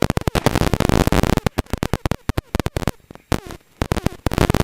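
Gravel and stones clattering against the underbody and wheel arches of a Holden VP Commodore rally car at speed, heard from inside the cabin as a dense, irregular crackle. The clatter thins out about two seconds in, then picks up again near the end.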